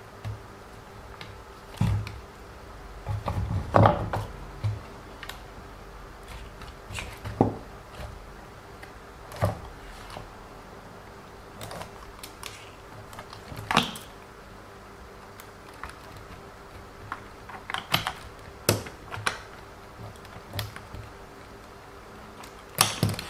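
Irregular clicks and light knocks of the small plastic suspension parts of a WLToys 144001 RC car being handled and fitted by hand, with a cluster of louder knocks about four seconds in. A faint steady hum runs underneath.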